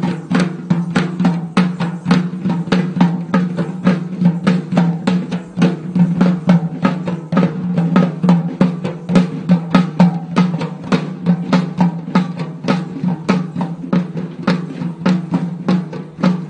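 Traditional Sri Lankan procession drums beaten in a fast, even rhythm, about three to four strokes a second, over a steady held drone.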